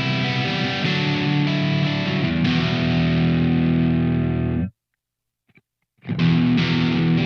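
SLX Raven Modern Pro 24 HH electric guitar with Seymour Duncan humbuckers, playing sustained distorted chords that change every second or so. The sound cuts off suddenly about two-thirds of the way in, leaving over a second of silence with a faint tick, then the distorted chords come back in.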